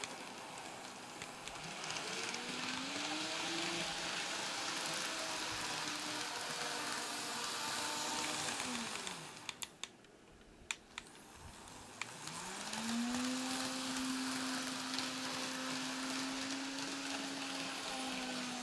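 Kato N-scale GE AC4400CW model locomotive running on track: its electric motor whines, rising in pitch, over the rattle of the freight cars' wheels on the rails. The sound fades away about nine seconds in, leaving a few light clicks, then the motor whine and wheel rattle come back about twelve seconds in and hold steady.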